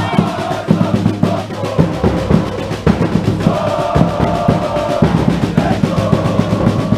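Football supporters' drums beating a steady, dense rhythm, with the crowd chanting together over them.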